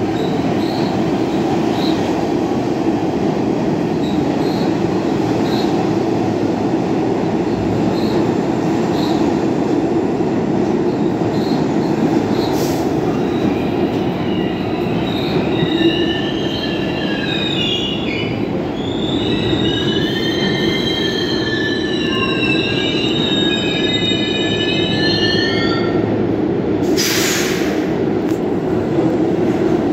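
R46 subway train rumbling along the platform as it slows to a stop. From about halfway in, its wheels squeal in several high tones as it brakes. Near the end comes a short burst of hissing air as it halts.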